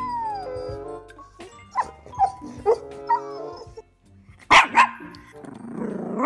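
A Doberman barking in a string of sharp barks, the two loudest coming close together about four and a half seconds in.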